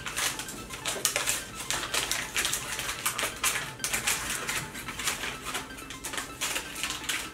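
Chewing a dark chocolate bar studded with popping candy: irregular crackling and crunchy clicks throughout.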